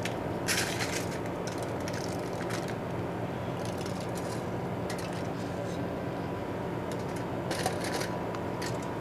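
Aluminium foil crinkling and a hand rubbing as sesame seeds are patted onto marinated chicken, in a few short rustles, over a steady hum.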